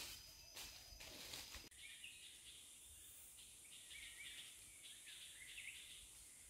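Faint forest ambience: small birds chirping and a steady high insect drone. In the first second and a half there is soft rustling, like steps in leaf litter, which then stops abruptly.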